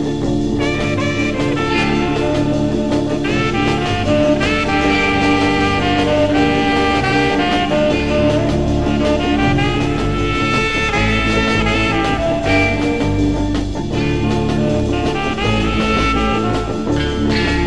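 Background music: a jazz tune with horn melody lines over a steady accompaniment.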